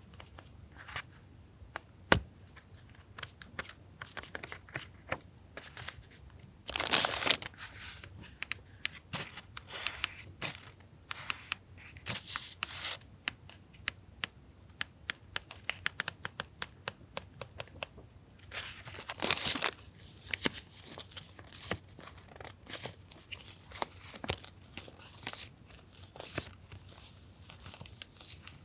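Packs of stickers and background papers being handled: rustling with many small sharp taps, a louder tap about 2 seconds in, and two longer rustling bursts about 7 and 19 seconds in.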